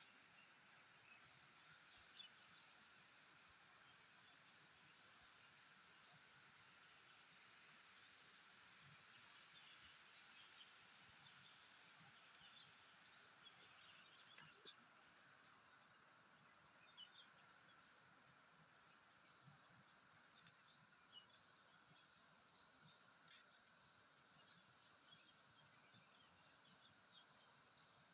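Faint, steady high-pitched drone of insects, louder from about two-thirds of the way in, with many short high chirps scattered over it.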